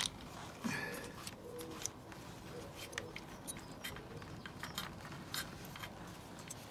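Faint, scattered small metallic clicks and scrapes as the long oil-filter retaining bolt is unscrewed by hand from the motorcycle's sump.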